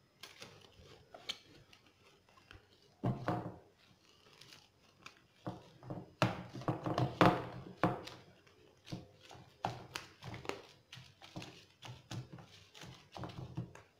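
Plastic cling film crinkling and rustling as it is pulled off the roll and pressed down by hand over a tray of dough balls, in irregular crackles with a few louder handfuls.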